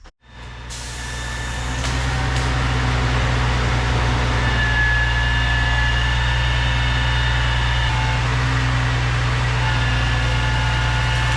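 An engine running steadily with a deep, even hum, fading up over the first two seconds and then holding level.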